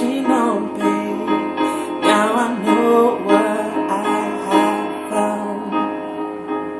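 A voice singing a melodic line with pitch runs and slides over sustained keyboard chords.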